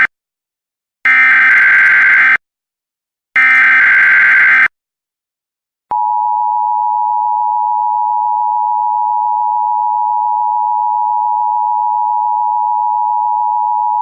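Emergency Alert System tones: the end of one burst and two more bursts of the digital SAME data code, each about a second and a half long. Then, after a short gap, about six seconds in, the steady two-tone EAS attention signal starts and holds.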